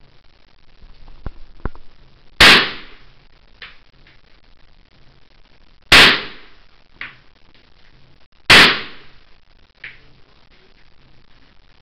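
AK-47 rifle firing three single aimed shots of 7.62×39 mm, about two and a half to three and a half seconds apart. Each shot is a very loud crack with a short ringing tail.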